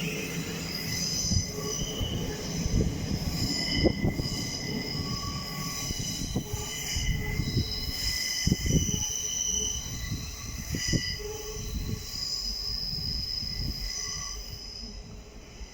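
A train running on the rails, with a high-pitched wheel squeal that comes and goes over a low rumble and a series of sharp clunks. The squeal and rumble die away near the end.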